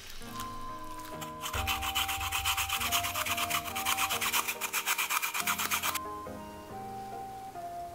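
Raw potato being grated on a hand grater: quick, even rasping strokes that start about a second and a half in and stop abruptly near the end, over soft background music.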